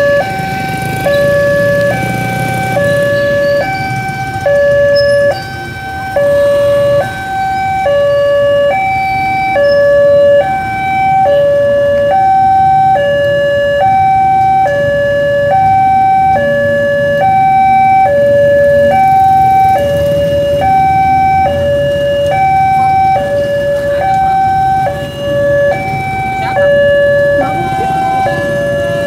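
Railway level-crossing warning alarm: an electronic two-tone signal alternating evenly between a high and a low note without a break, warning that a train is coming and the barrier is down. Motorcycle engines run underneath.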